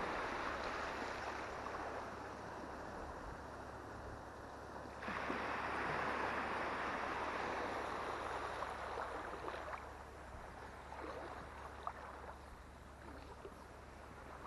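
Shallow seawater sloshing and splashing, which changes abruptly about five seconds in and grows quieter in the second half, with a few faint clicks.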